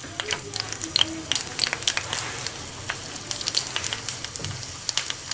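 Chopped garlic cloves frying in hot mustard oil in a pan, sizzling with a steady hiss and frequent crackles as they cook toward golden.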